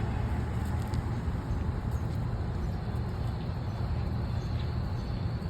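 Steady low rumble of a vehicle's engine running, with an even noise of motion over it.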